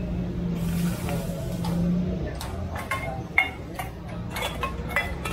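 Small enamelled metal teapots and their lids clinking as they are handled on a stove: a scattering of sharp clinks in the second half, the loudest about three and a half seconds in, over a steady low hum.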